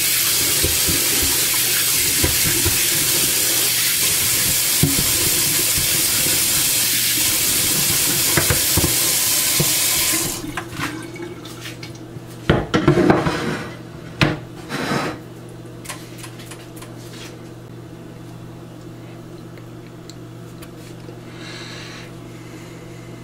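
Kitchen tap running onto a bamboo cutting board being rinsed in a stainless steel sink; the water shuts off suddenly about ten seconds in. A few knocks and clatters follow as the wooden board is lifted and handled, then only a faint steady hum.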